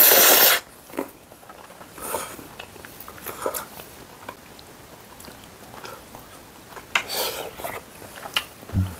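A loud slurp of spaghetti noodles at the start, then chewing and the light clicks of chopsticks, with a second slurp about seven seconds in.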